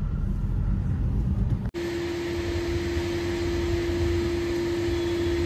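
Low road and engine rumble inside a moving Suzuki Swift. About a second and a half in, it cuts to a wet-and-dry vacuum cleaner running, a steady rushing hiss with one steady humming tone.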